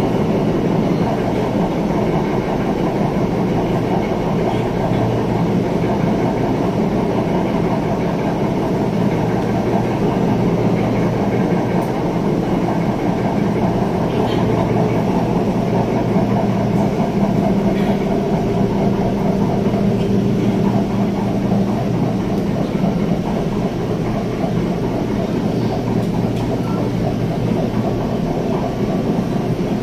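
LRT Line 2 electric train running along its elevated track, heard from inside the passenger car: a steady rumble of wheels on rail with a continuous low hum.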